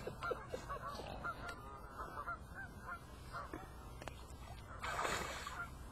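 Repeated short honking calls, several a second, with a burst of splashing water about five seconds in.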